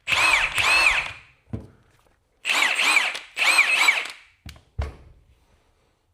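Milwaukee 1/2-inch impact wrench running free in four short trigger pulls, in two pairs, each spinning up and winding down in pitch: the tool works again now that its broken trigger wire has been resoldered. A few low thumps come between the pairs.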